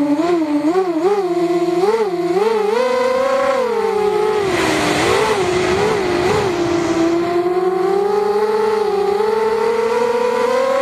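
Racing quadcopter's electric motors and propellers whining in flight, heard from the onboard camera. The pitch wavers up and down quickly with throttle changes, a rushing hiss joins in around the middle, and the pitch climbs steadily near the end.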